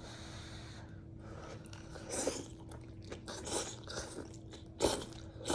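A person eating miso noodle soup: irregular chewing and mouth sounds, louder about two and five seconds in.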